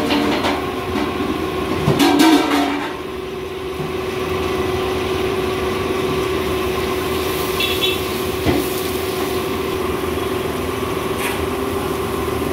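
Chicken pieces deep-frying in oil in a large wok over a commercial gas burner: a steady rush of burner and sizzling oil with a constant hum. There is a brief louder burst of noise about two seconds in.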